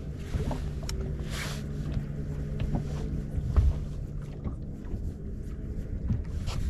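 A fishing boat's motor running with a steady low hum, with a few light knocks and clicks. There is a short whoosh about a second and a half in, and a low thump a couple of seconds later.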